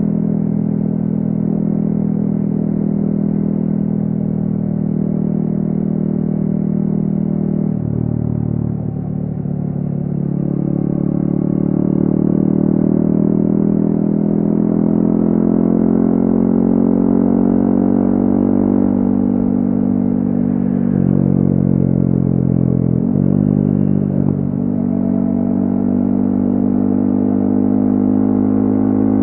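Yamaha XSR155's single-cylinder engine through a DIY exhaust, ridden on the road. The engine note drops about eight seconds in, then climbs steadily as the bike accelerates, breaks briefly twice a few seconds apart and settles to a steady cruise.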